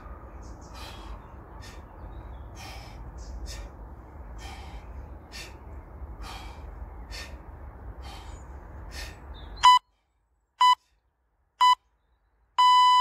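Sharp rhythmic breaths, about one a second, from a man doing knee tucks, over a steady outdoor hiss and rumble. About ten seconds in come three short electronic beeps a second apart and then one longer beep at the same pitch: a workout interval timer's countdown marking the end of the set.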